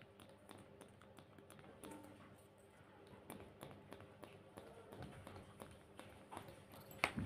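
Faint, scattered light taps and clicks of handling over a faint low hum, as cosmetics and skin are worked by hand.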